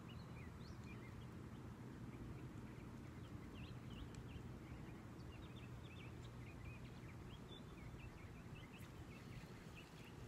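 Faint outdoor ambience: many short, scattered bird chirps over a steady low rumble.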